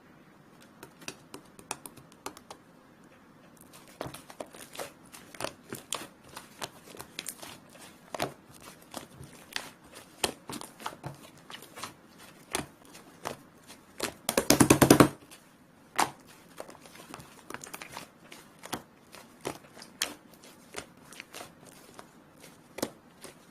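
Clear slime being squished and pressed by hand, making irregular sticky clicks and air-bubble pops, with a quick run of rapid, louder pops about fourteen seconds in.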